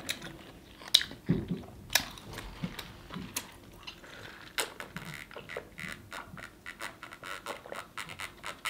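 Close-miked mouth sounds of a person eating and drinking: chewing and wet lip smacks, then sipping and swallowing from a plastic cup, heard as a string of sharp clicks and gulps.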